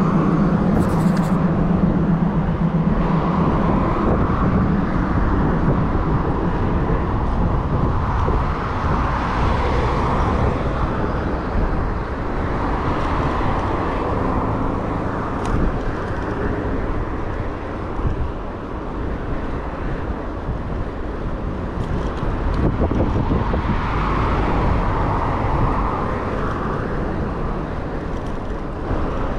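Road traffic running steadily on a busy road alongside, with several cars swelling past and fading, under a low rumble of wind on a moving bicycle's microphone.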